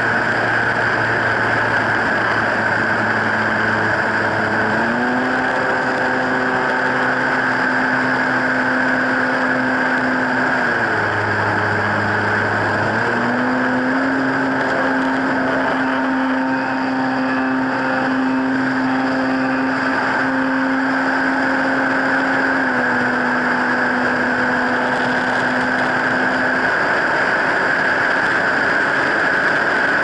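Onboard sound of an electric 1400 mm Airfield T-28 RC plane in flight: its brushless motor and propeller running with a steady high whine, the propeller tone stepping up in pitch about five seconds in, dropping for a couple of seconds around eleven seconds, rising again and then easing down in two steps later on as the throttle changes. Wind rushes past the onboard microphone throughout.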